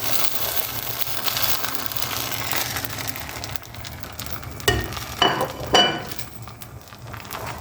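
Egg mixture sizzling as it fries in hot oil in a pan, the sizzle easing a little past halfway. Three sharp metallic clinks of a utensil against the pan follow in quick succession.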